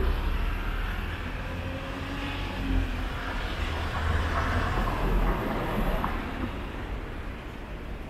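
Street traffic: a passing vehicle's low rumble fading away into the steady noise of city traffic.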